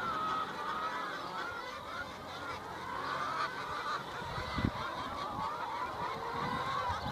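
A large flock of brown hens clucking and calling, many wavering calls overlapping. A few low thumps come in about halfway through.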